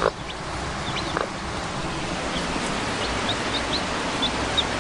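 Day-old chicks peeping over a steady hiss: short high peeps, a few in the first second and then a quick run of them in the second half. A brief lower call sounds about a second in.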